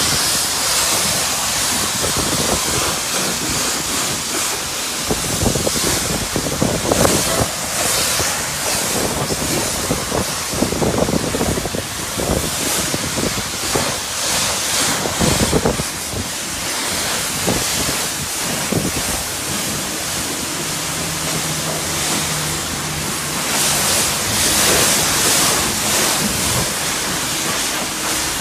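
High-pressure washer wand at a self-service car wash spraying water over a car: a steady hiss of spray that swells and fades as the jet moves. A faint low hum joins in the last third.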